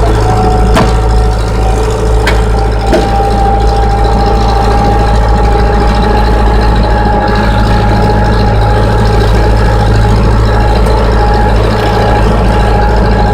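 Case 580E backhoe's diesel engine running steadily, heard from inside the cab, with a steady high whine over the engine note. A few sharp clicks sound in the first three seconds.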